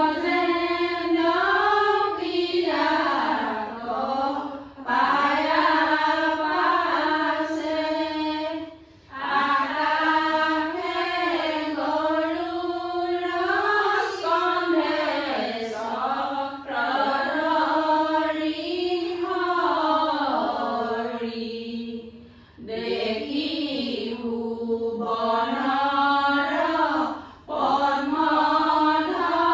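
Unaccompanied devotional prayer sung by a group of women in unison. It moves in long, drawn-out melodic phrases, with brief pauses every few seconds between lines.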